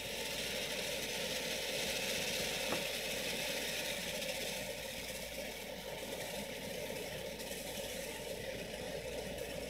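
Ground fountain firework spraying a column of sparks, giving a steady hiss that holds level without a break.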